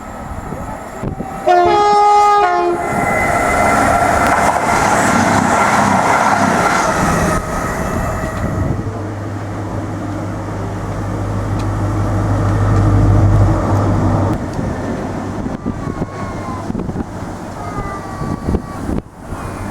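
A passing train sounds a short multi-note horn about two seconds in, then runs past with a steady rumble and a low hum that swells in the middle and fades.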